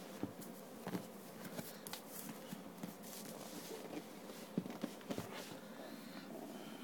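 Faint handling noise: scattered light clicks and small knocks with soft rustling over a low steady hiss.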